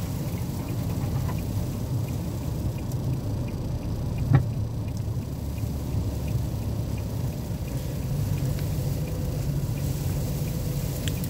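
Steady low rumble of a car driving, heard from inside the cabin, with faint scattered light ticks and a single sharp knock about four seconds in.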